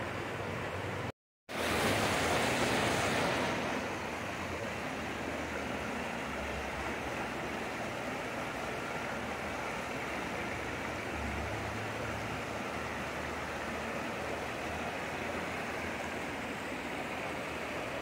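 Shallow, rocky mountain creek rushing over stones and riffles in a steady flow. The sound cuts out for a moment about a second in, comes back louder and brighter for a couple of seconds, then settles to an even rush.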